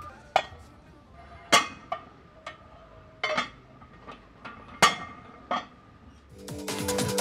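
Cast-iron weight plates clanking as they are loaded onto a barbell in a squat rack: about seven sharp metallic clanks, each with a short ring. Electronic music with a steady beat comes in near the end.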